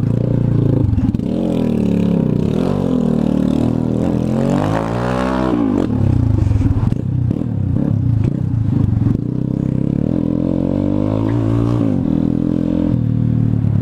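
Yamaha Fazer 250's single-cylinder engine running loud through a straight pipe with no muffler, its revs rising and falling as the rider works the throttle. The biggest climb and drop in revs comes about five seconds in, with another rise near the end.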